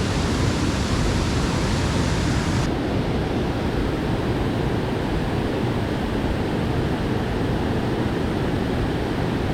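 Steady rush of flowing water, an even noise with no separate events. The sharpest hiss drops away abruptly about three seconds in.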